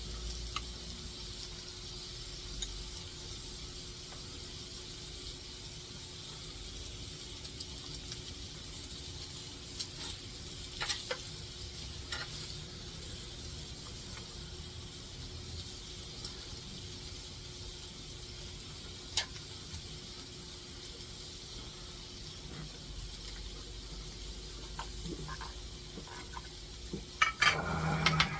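Steady hiss with a faint low hum, broken by a few sharp clicks and, near the end, a quick cluster of louder clicks and knocks.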